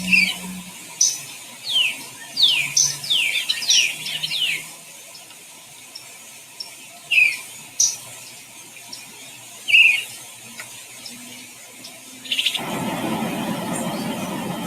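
Eastern bluebird calling: a quick run of short down-slurred chirps in the first few seconds, then single chirps now and then. About two seconds before the end a steady rushing noise comes in suddenly under the chirps.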